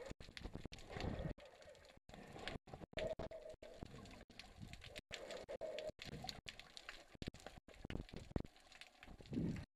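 Muffled underwater sound picked up through a GoPro's waterproof housing: irregular low whooshes of water and faint knocks, with two short low tones and many brief drop-outs.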